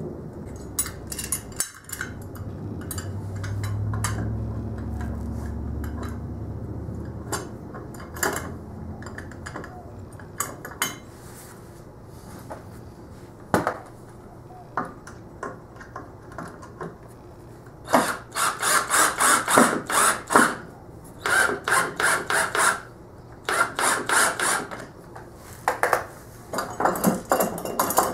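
Cordless drill driving screws into a wooden workbench leg to fasten a caster bracket: a low motor hum that swells for several seconds, then scattered clicks and, in the second half, repeated short bursts of rapid clicking and rattling as the fasteners are worked.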